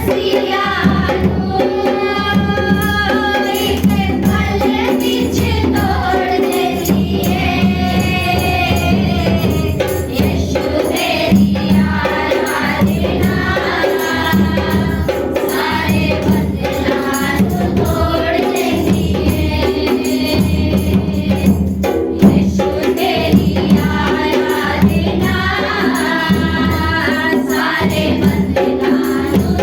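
A congregation singing a Hindi Christian worship song together, with tambourine and other hand percussion keeping a steady beat.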